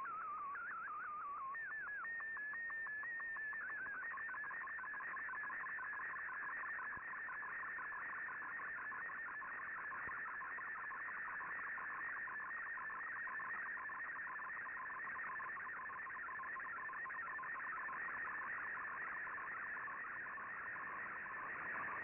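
Shortwave digital-mode picture transmission (MFSK colour image) heard through an Icom IC-R8600 receiver over band hiss. A brief warble and a run of sweeping chirps at the start give way, about four seconds in, to a dense, rapidly fluttering tone. The fluttering tone is the image data that fldigi is drawing as a colour picture.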